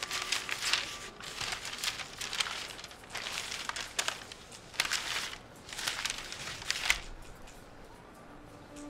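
Newspaper pages rustling and crinkling as a broadsheet is opened out and its pages turned, in a run of irregular rustles that stops about seven seconds in.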